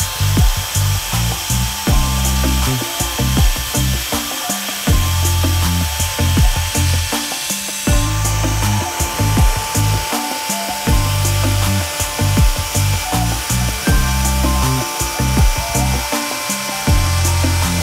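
Background music with a steady beat, over a CNC spindle and end mill cutting a circular pocket into an aluminium block.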